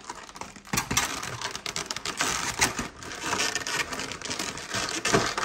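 Box packaging being handled: a dense, crackling rustle with many small clicks, starting about a second in and stopping just before the end.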